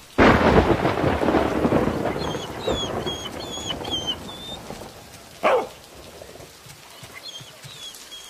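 A thunderclap breaks suddenly and rumbles away over about two seconds, leaving steady rain falling. Faint high chirps come and go over the rain, and a brief sharp sound stands out about five and a half seconds in.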